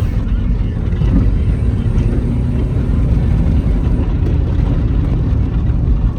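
2003 Honda CR-V with its 2.4-litre K24A1 four-cylinder engine driving along, a steady low engine and road rumble. The engine is running out of limp mode, its VTEC solenoid cleaned and working again.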